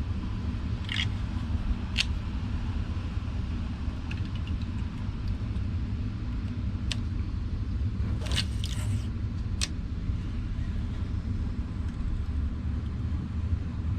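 Wind rumbling on the microphone, with a few scattered sharp clicks and ticks.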